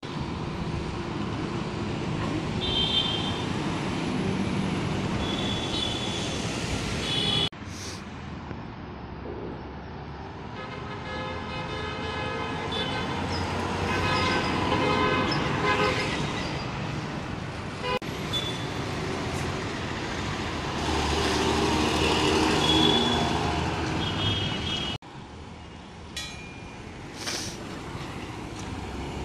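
Road traffic with MSRTC buses driving past, their engines running among other vehicles, and several short horn toots. The sound cuts off abruptly twice and picks up again.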